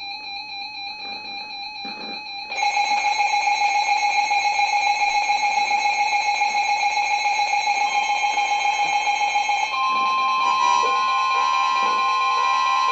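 Emergency Alert System alert tones: a steady electronic tone that turns louder and pulses rapidly from about two and a half seconds in, then changes near the end to a steady two-pitch tone, the attention signal ahead of a severe thunderstorm warning.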